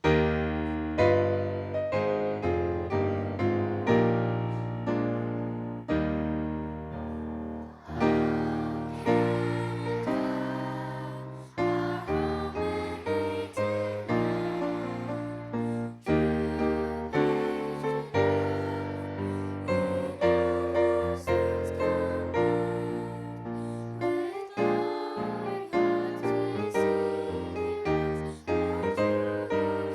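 Piano playing a steady sequence of chords over a bass line, starting suddenly after a hush.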